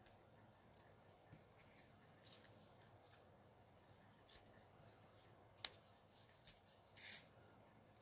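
Faint paper handling: light rustles and taps of fingers on card stock and small die-cut pieces, with one sharp click a little before six seconds in and a short rustling scrape about a second later.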